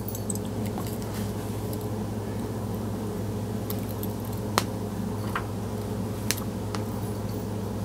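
A steady low hum, with a few light clicks of pliers working a lure wire, the sharpest a little past halfway.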